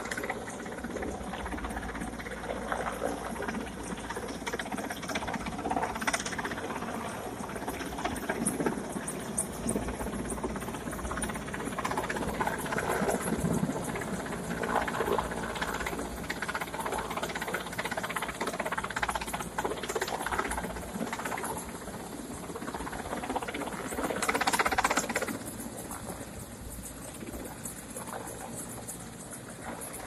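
Mi-8 helicopter flying slowly overhead with a load line hanging beneath it: a continuous rushing turbine-and-rotor noise that rises and falls in loudness, loudest about three-quarters of the way through.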